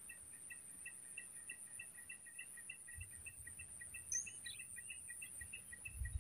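Insects calling in a faint, steady high-pitched drone, with a separate run of quick chirps repeating about three times a second. A few low thuds come in from about halfway, the loudest near the end.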